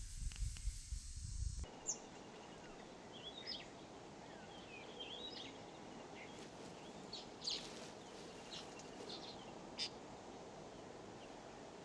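Wild birds calling: scattered short chirps and whistles over a quiet outdoor background. A low rumble with hiss fills the first second and a half, then cuts off abruptly.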